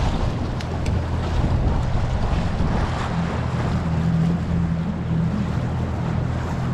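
Boat motor running steadily under way, a low, even hum, with wind noise on the microphone and water rushing past the hull.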